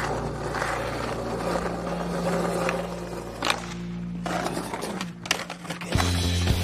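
Skateboard wheels rolling on hard ground with a few sharp clacks of the board, under background music with steady low notes. About six seconds in, fuller music with a heavy bass line starts.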